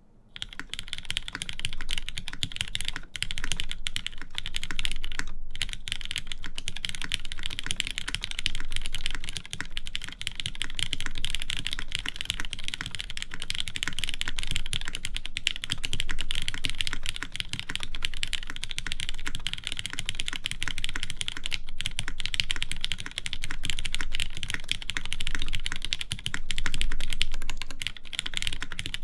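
Fast continuous typing on a mechanical keyboard with lubed linear Cherry MX Black switches: a dense stream of key presses and bottom-out clacks, with a few brief pauses.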